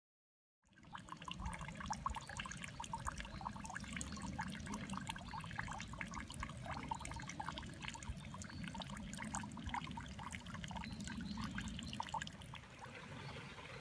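A thin stream of water falling and trickling into a moss-covered stone water basin, a dense steady patter of small splashes and drips. It starts about a second in and grows softer and more even near the end.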